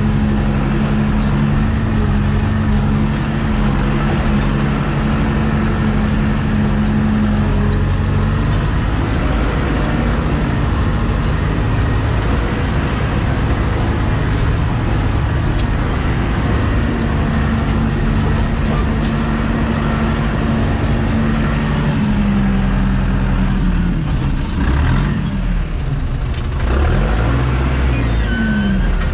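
LKT forestry skidder's diesel engine running steadily, its revs dropping and picking up again several times near the end.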